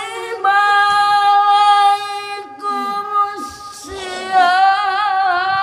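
An elderly man's Quran recitation (tilawah) in a high, melodious voice through a handheld microphone: long held notes, a short run of lower notes about halfway, then a wavering, ornamented held note near the end.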